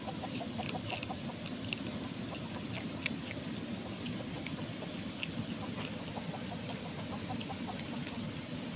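An otter eating crab: sharp crunches of shell between its teeth and quick runs of short, squeaky chirps, over a steady low background noise.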